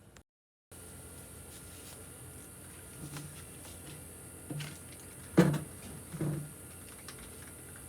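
A few dull knocks over a steady hiss, the loudest about five and a half seconds in.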